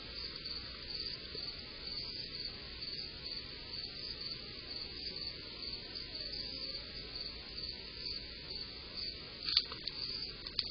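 Crickets chirping in a steady, even rhythm over a low background hiss, with one sharp knock near the end.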